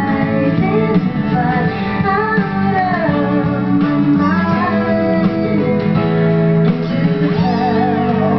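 Background music: a guitar track with a singing voice, playing steadily.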